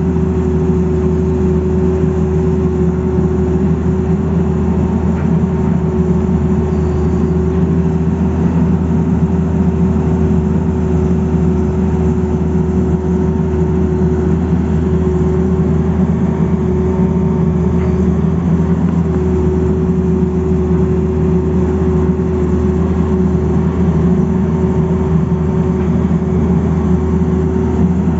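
Tata Hitachi crawler excavator's diesel engine running steadily under working load as the boom and bucket dig, a deep hum with a constant whine over it.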